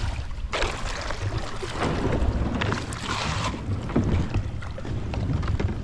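Kayak on a river with wind rumbling on the microphone, and a rush of water hiss from about half a second to three and a half seconds in, with a few small knocks.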